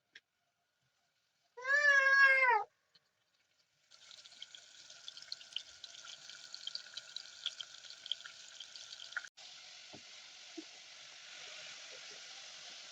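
One loud, wavering animal cry about a second long near the start. From about four seconds in, a steady hiss with scattered small crackles follows.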